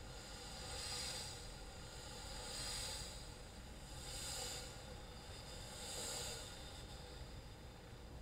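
Four soft, breathy hissing swells, each rising and fading over about a second, roughly every one and a half to two seconds, from a piece for violin and electronics.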